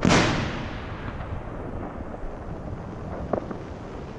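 Homemade 3-inch aerial firework ball shell bursting: one loud bang that echoes away over about a second. A small sharp pop follows about three seconds later.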